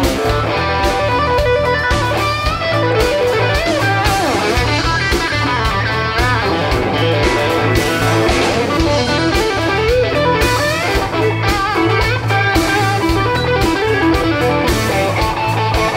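Country band playing an instrumental break: electric guitar leads with bent, sliding notes over a steady drum and bass beat.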